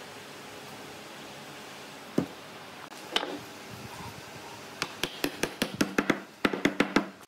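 Hammer blows on wood: a single knock about two seconds in, then a quick run of about fifteen sharp taps, roughly six a second, over the last two seconds, against a steady low hiss.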